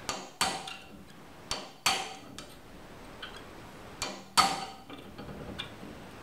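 Hammer striking a pin punch to drive old rivet pieces out of a steel sickle-bar blade strip held in a vise. Three pairs of sharp metallic blows, each a light tap then a harder strike, with brief ringing; the loudest strike comes about four seconds in.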